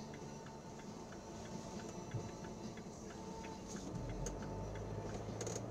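Car's turn indicator ticking steadily, about two to three clicks a second, while the car idles waiting to pull out. A passing bus adds a low rumble from about four seconds in.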